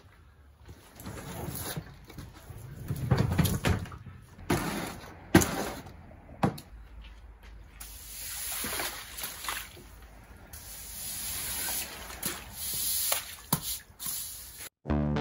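Footsteps and a push broom splashing and swishing through shallow standing water on a concrete garage floor, with a few sharp knocks and bumps in between.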